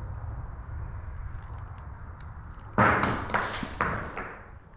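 Airsoft shots: a quick run of about five sharp cracks within a second and a half, with a high metallic ring hanging over them. A low rumble comes before them.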